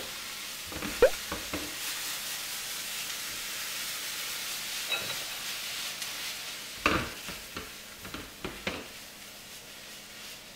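Chopped onions sizzling in hot oil in a frying pan as they start to caramelize with salt and sugar, stirred with a silicone spatula. There are a few sharp taps of the spatula on the pan about a second in, and a cluster of knocks and rattles from about seven seconds as the pan is tossed.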